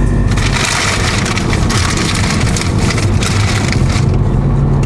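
A car driving, heard from inside the cabin: a low engine rumble under a loud hiss of road and wind noise, which drops away about four seconds in.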